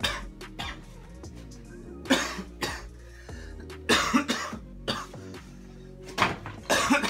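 A man coughing hard and repeatedly in short fits, set off by the capsaicin burn of extremely hot sauce, over background music.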